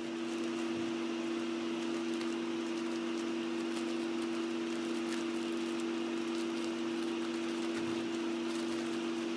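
Laminar flow hood's blower fan running: a steady two-tone hum with the hiss of air through the filter, and faint crinkling of plastic grain bags being handled.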